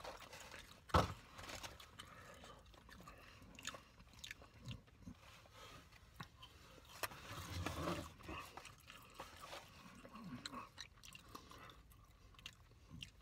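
A person eating French fries and a pastrami sandwich: chewing and biting, with scattered small crunches and clicks. There is a sharper click about a second in.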